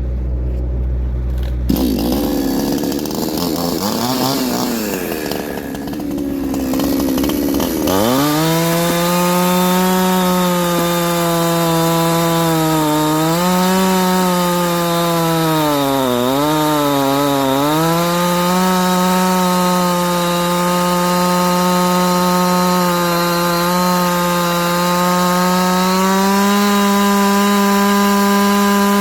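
Chinese two-stroke chainsaw cutting ironbark hardwood. For the first few seconds the engine note is uneven and wavering. From about eight seconds in it holds a steady, high, full-revving note, sagging in pitch a few times around the middle as the chain bogs in the very hard timber.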